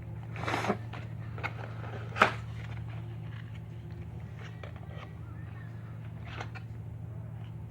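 Handling noises from unboxing a phone holder: a short rustle of packaging, a sharp click or knock a little over two seconds in, a few light ticks, and another brief rustle near the end.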